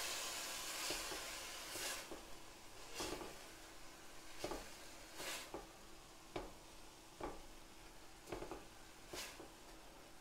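Grated vegetables sizzling faintly in a stainless-steel sauté pan while a spatula stirs and scrapes them, about one stroke a second. The sizzle fades over the first few seconds.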